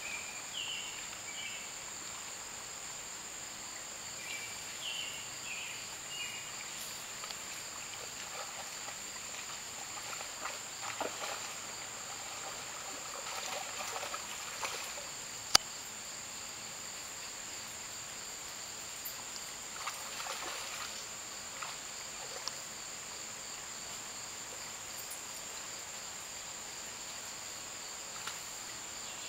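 Steady, high-pitched insect chorus of crickets or katydids in summer woodland. A few short falling bird chirps come in the first few seconds, there are stretches of faint rustling, and a single sharp click about halfway through is the loudest sound.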